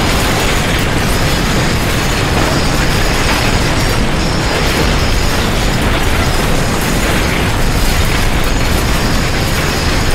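Loud, unbroken rumble and rattle of violent earthquake shaking, a dense roar with clattering mixed in.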